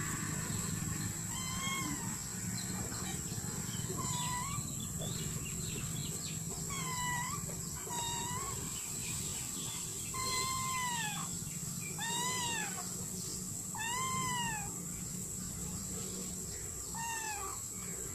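An animal calling again and again: about eight short calls, each about half a second long and arching up and down in pitch, spaced a second or more apart. A low steady hum runs beneath them.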